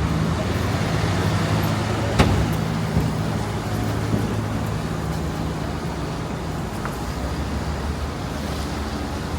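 City street traffic with a motor vehicle engine running steadily nearby, and a single sharp knock about two seconds in.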